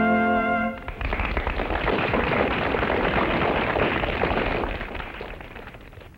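Music cuts off about a second in, then an audience applauds, a dense clapping that slowly dies away over the next few seconds.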